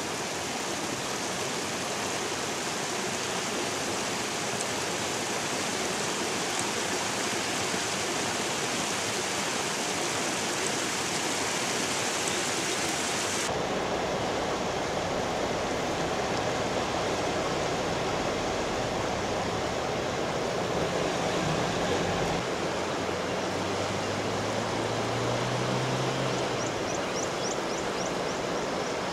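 River water running over rocks, a steady rush that shifts lower in tone about halfway through.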